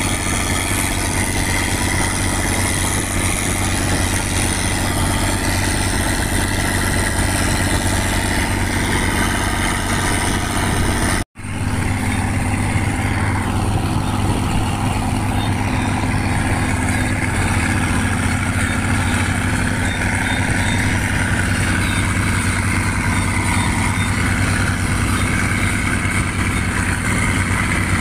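Motorboat engine running steadily under the rush of water past the hull. The sound breaks off for an instant about eleven seconds in, then carries on unchanged.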